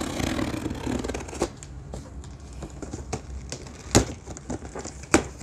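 Scissors cutting through packing tape and cardboard on a shipping box: a scratchy rasping of blade on tape and cardboard. Sharp clicks come through it, the loudest about four seconds in and again just after five.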